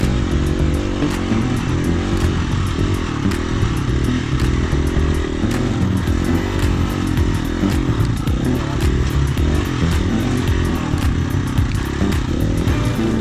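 Dirt bike engine running as it is ridden along a trail, the pitch shifting with the throttle, with many small knocks and clicks throughout.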